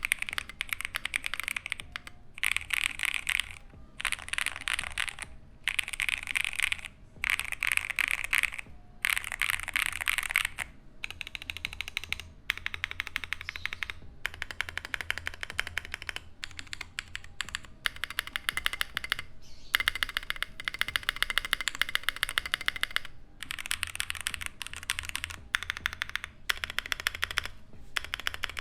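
Typing sound test on an Akko YU01 tray-mounted mechanical keyboard in a resin case, fitted with Akko Piano Pro switches: fast runs of keystrokes lasting a second or two with short pauses between them, and longer unbroken runs in the second half. The keystrokes sound snappy, pitched between a mid clack and a low thock.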